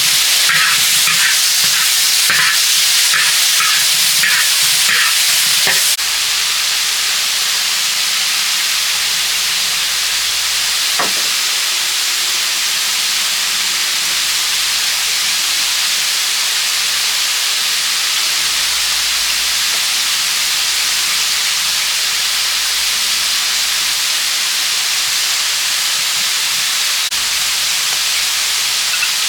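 Food frying with a loud, steady sizzle. During roughly the first six seconds a utensil stirs it in regular strokes, then the sizzle carries on alone.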